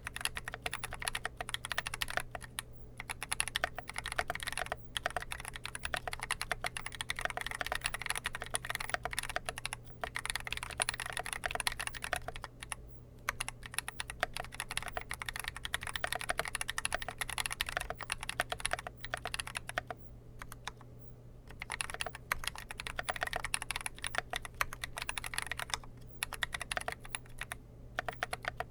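Typing on a Dolch.CR mechanical keyboard with lightly lubed Drop Holy Panda tactile switches, GMK Modern Dolch keycaps and clipped, lubed, band-aid-modded stabilizers: rapid, continuous keystrokes broken by a few short pauses, the longest about twenty seconds in. A faint steady low hum runs underneath.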